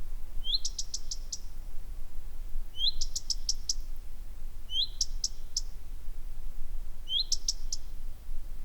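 A small bird repeating the same short call four times, about every two seconds. Each call is an upward-sliding note followed by a quick run of four or five sharp, high notes.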